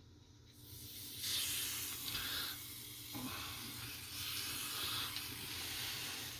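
Aerosol can of adhesive spray hissing in uneven spurts as it is sprayed along the edges of a phone frame, starting about a second in.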